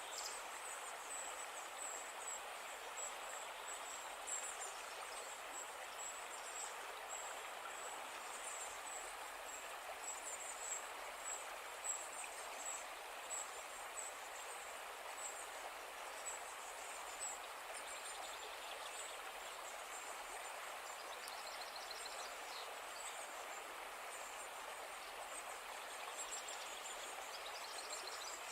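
A river flowing steadily, with birds chirping over it: many short, high chirps all the way through, and a few brief trills later on.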